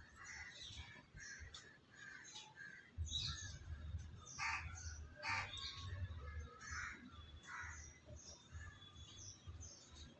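Outdoor birds calling again and again, faint, with two louder, harsher calls about halfway through, over a low wind rumble.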